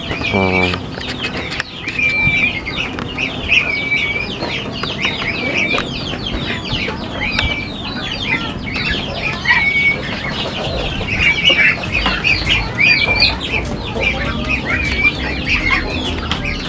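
A flock of young Muscovy ducks calling with many overlapping high-pitched peeps and short whistles as they are driven out of the pen.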